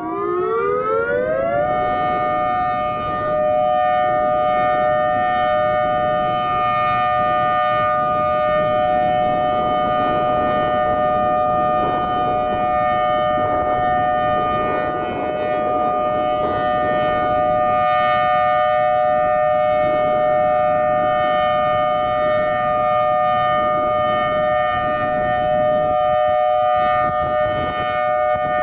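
Emergency warning siren sounding a two-note chord for a system test. It rises quickly in pitch over the first couple of seconds, then holds a steady tone.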